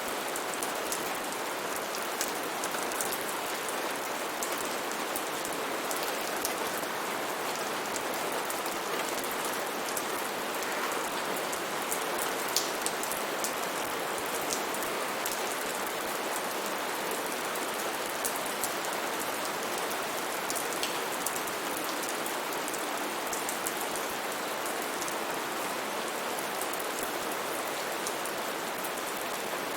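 Steady rain falling, an even hiss with scattered close drops ticking on a surface.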